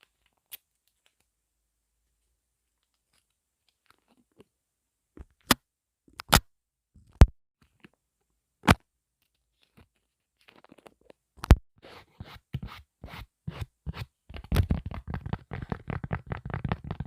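Close-miked ASMR trigger sounds on an earphone microphone: a few sharp isolated clicks several seconds apart, then, about two-thirds in, a rapid crackly run of taps, several a second, that grows louder.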